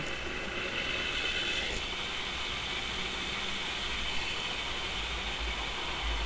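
Homemade Newman motor running, its rotor spinning on a printer shaft in skateboard bearings while the commutator contacts switch, giving a dense, steady mechanical clicking.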